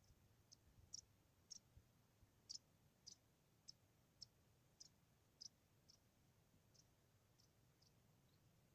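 Faint, sharp clicks at an even pace of about two a second, fading toward the end.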